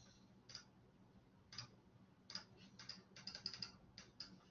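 Near silence broken by about a dozen faint, sharp clicks, sparse at first and bunched close together in the middle.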